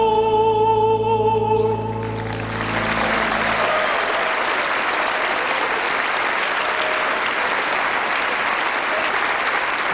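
A man's voice holds the song's final note with vibrato over sustained backing music. About two seconds in, a large audience breaks into applause, which goes on steadily while the music dies away.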